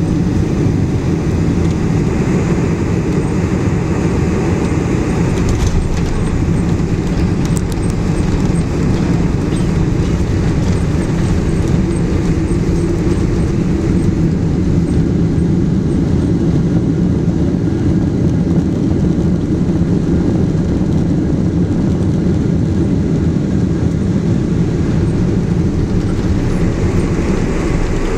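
Boeing 747-400 jet airliner giving a loud, steady rumble, heaviest in the low end, with no distinct thumps or changes in level.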